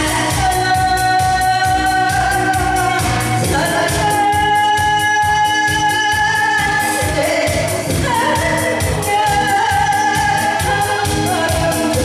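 A woman singing a song into a microphone over backing music with a steady beat, holding long notes.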